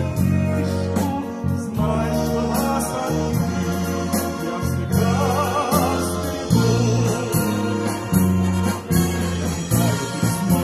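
Wind band playing the instrumental interlude of a slow song, sustained bass notes moving under a melody, with a wavering melody line about halfway through.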